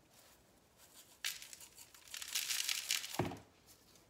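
A shaker of coarse grill seasoning is shaken over a raw steak, the granules rattling out in a crackly hiss for about two seconds. It ends with a soft knock as the jar is set down.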